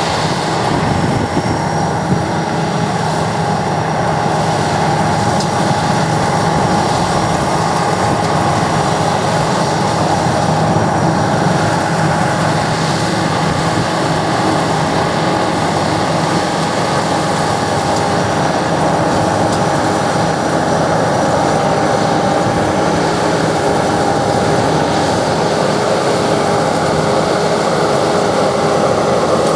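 Sakpattana SS100 mini rice combine harvester running steadily: a constant machine drone with a steady high whine over it.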